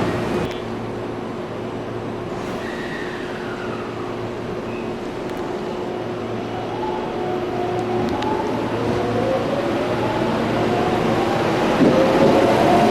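Electric commuter train pulling away from the platform, its traction motors whining in several tones that climb steadily in pitch and grow louder over the second half as it speeds up.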